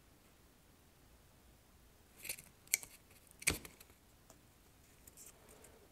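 A few sharp clicks from hand work on a motor stator's braided lead wires, starting about two seconds in, with the loudest about a second later, then a few faint ticks.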